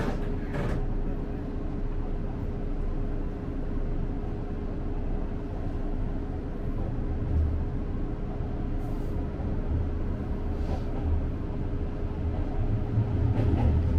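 Seibu Shinjuku Line electric commuter train running on the track, heard from inside the driver's cab: a steady rumble of wheels on rail under a steady hum, with a few faint clicks. The rumble grows louder near the end.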